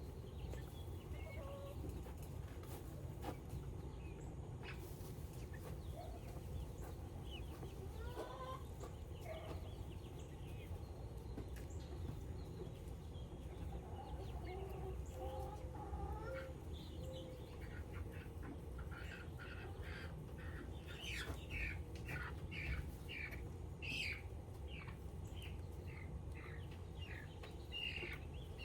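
Chickens clucking and calling, with a rapid run of short, high calls, about three a second, in the latter part.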